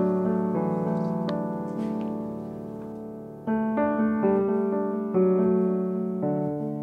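Slow piano music: chords struck and left to ring and fade, with a long fading chord in the middle, then fresh chords about every second.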